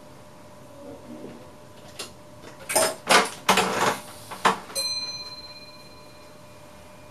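A run of knocks and clatter in a train's driver cab, then a single bell-like chime about five seconds in that rings and fades out over about two seconds.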